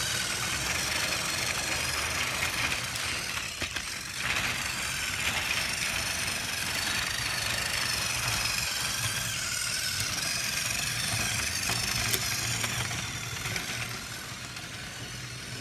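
Battery-powered toy train engine running on plastic track: a steady motor whir, dropping in level about two seconds before the end.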